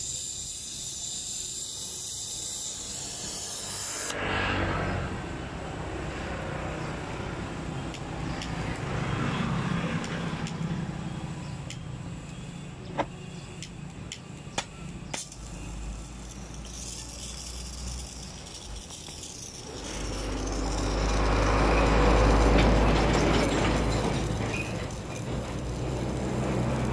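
Brazing torch flame hissing steadily against copper pipe on an air-conditioner compressor. A few sharp clicks come in the middle, and a louder rushing swell builds and fades in the last third.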